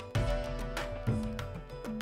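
Background music: an instrumental track with a drum beat striking about once a second.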